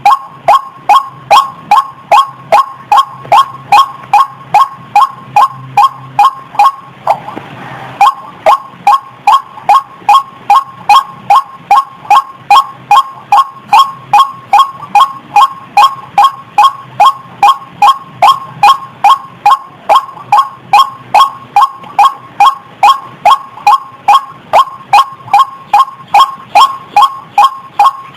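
White-breasted waterhen calling a monotonous 'ruak ruak' note over and over, about two calls a second, as a lure recording for trapping the birds. There is a short break about seven seconds in.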